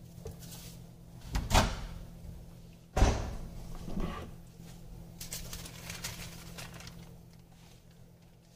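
Kitchen handling knocks: a knock about a second and a half in, a sharp bang at three seconds (the loudest), a smaller knock just after, then softer rattles, over a steady low appliance hum.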